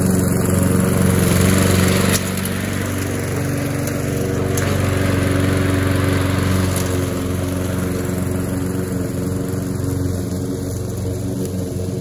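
Walk-behind gasoline lawn mower engine running steadily while mowing, a little louder for the first two seconds before its level drops slightly.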